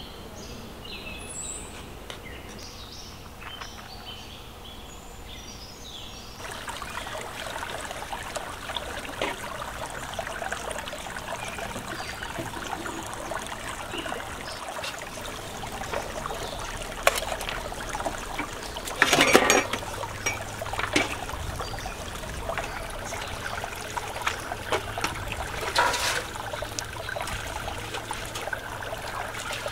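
Shallow rocky stream trickling while metal pots, bowls and a colander are rinsed in it, with scattered clanks of the metal dishes, the loudest a clatter about two-thirds of the way through. Before the water comes in, a few bird chirps over quiet open-air ambience.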